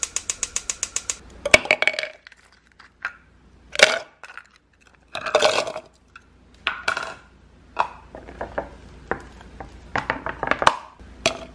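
Gas stove igniter clicking rapidly as the burner knob is turned, stopping about a second in. Then ice cubes are dropped into a clear tumbler a few at a time, with a run of separate clinks and clatters.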